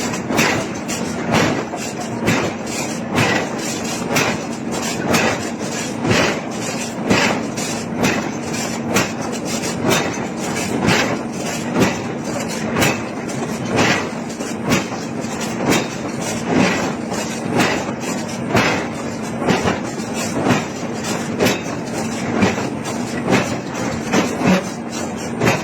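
Repeated hammer blows on hot iron in a steady, even rhythm, roughly three blows every two seconds, over a steady machine hum.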